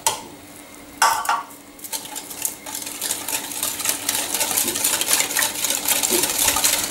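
Metal wire whisk stirring gelatin into warm water in a ceramic bowl to dissolve it: a rapid, steady clatter of the wires against the bowl that starts about two seconds in, after a couple of brief knocks.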